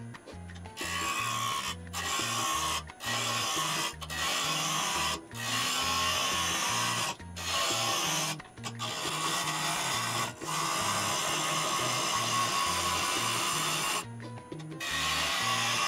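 Half-inch bowl gouge cutting a spinning Kentucky coffee tree bowl blank on a lathe, truing it to round: a rough scraping rush in long passes broken by short pauses, starting about a second in and halting briefly near the end. Background music with a bass line plays under it.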